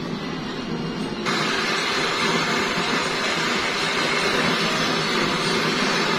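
Jeweler's gas torch hissing steadily as its flame heats a clay crucible. The hiss comes on suddenly about a second in, over a steady low hum.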